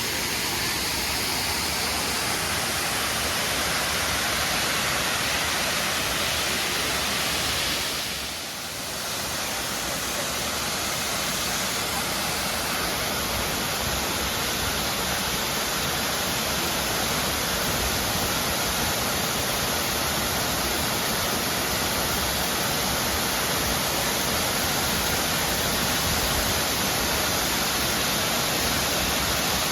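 Steady rushing of a waterfall, an even, unbroken hiss, dipping briefly about eight seconds in.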